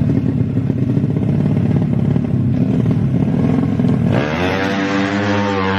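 Small four-stroke motorcycle engine running with a rough low rumble, then revved up sharply about four seconds in and held at high revs.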